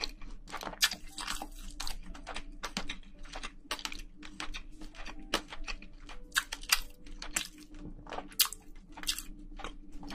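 Close-miked ASMR chewing of spicy braised seafood (haemul-jjim): a steady run of irregular sharp crunches and mouth clicks.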